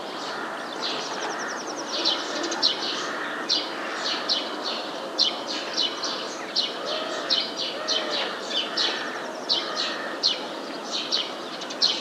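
Small birds chirping: a steady run of short, sharp, high chirps repeating once or twice a second, with softer chatter beneath and a constant outdoor background hiss.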